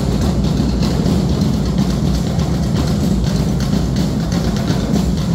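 Loud drum-heavy music with deep bass and a steady beat.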